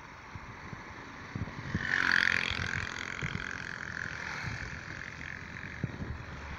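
Strong wind rushing over and buffeting the microphone on a moving scooter, swelling louder about two seconds in and then easing back.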